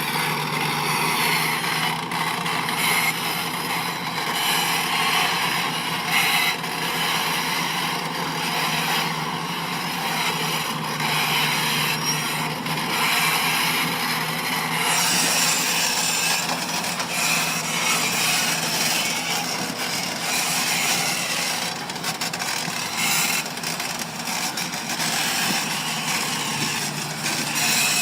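Diesel engine of a heavy earthmoving machine running steadily, with scraping, grinding and clanking of metal against earth and rock. The tone of the scraping shifts about halfway through.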